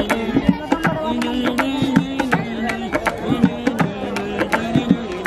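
Hands drumming quick, tabla-like strokes on a black pot, under a wordless sung melody held on long, bending notes.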